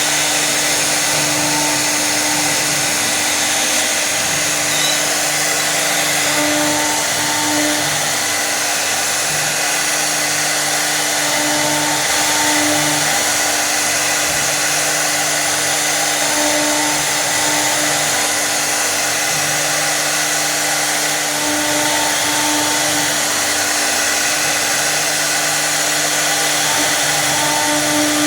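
1325-size CNC wood router running: a steady spindle whine over a constant rushing noise, with shorter tones that come and go every second or two.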